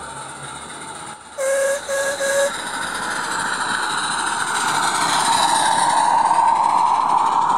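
Live-steam model narrow-gauge locomotive giving three short toots on its whistle, then running past with its train of wagons, the running noise growing louder toward the end.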